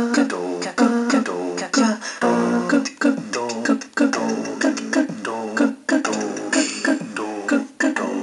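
Commodore 64 SID-chip music playing: a steady beat of short, quickly decaying synthesized notes with drum hits.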